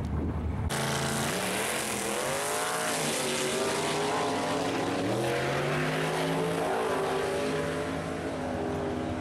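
Drag race car engines revving, their pitch swinging up and down over a loud rushing noise. The sound starts abruptly a little under a second in.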